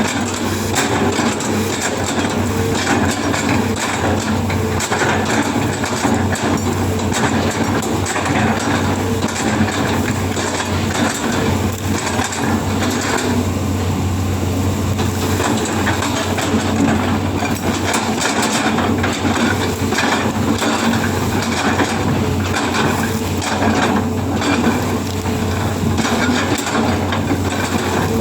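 Excavator at work: its diesel engine running steadily under many irregular clanks, knocks and scraping.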